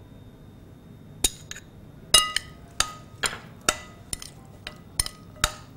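Metal spoon knocking against glass bowls as ketchup is scooped into diced potatoes and chickpeas and mixed. About ten sharp, ringing clinks at an uneven pace, starting about a second in.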